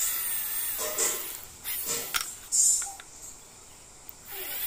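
Handheld electric drill boring a hole into a small wooden block, its high motor whine rising and falling in pitch as the load changes. It drops away about three seconds in and starts up again near the end.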